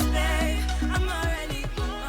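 Background music: an Afrobeat-style song with a sung vocal line over a steady bass and beat.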